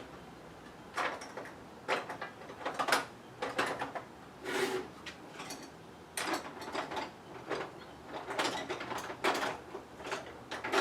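Hand tools and small parts being handled: a string of irregular short clicks, knocks and scrapes.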